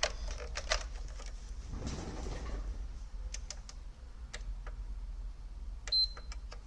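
Scattered clicks and knocks of the console and its cables being handled, then about six seconds in a single short high beep: the PS5 power-button beep as the console switches on.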